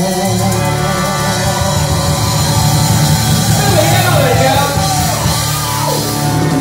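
Live rock band playing with bass, drums and electric guitar under a held chord, a singer's voice gliding up and down over it about halfway through.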